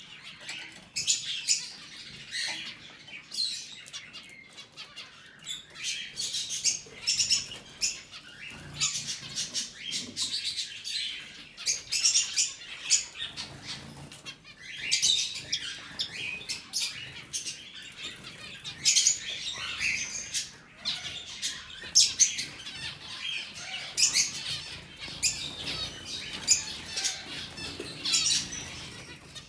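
Zebra finches and canaries in a shared aviary calling almost without pause: many short, high chirps overlapping, with some wing flutter.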